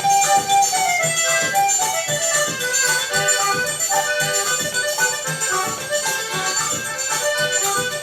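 Forró music: an accordion melody over a steady, even beat.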